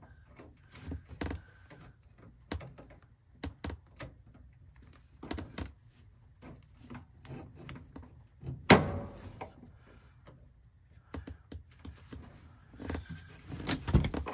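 Scattered clicks and light knocks of a zip tie being cut off furnace wiring and a new one fitted, with one loud knock a little past halfway.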